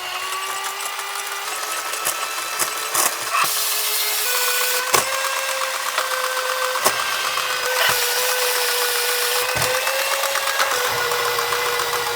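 Toy airplane's small electric motor and plastic gearing running with a steady whine, overdriven from a DC power supply; the pitch steps up about four seconds in as the voltage is raised. Several sharp clicks and knocks sound over the whine.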